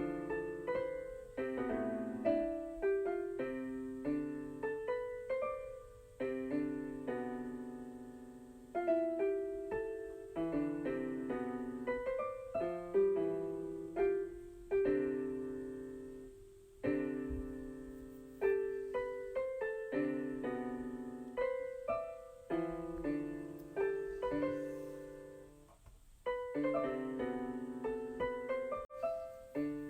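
Keyboard music with a piano sound: melody notes and chords struck one after another, each fading away, in unhurried phrases.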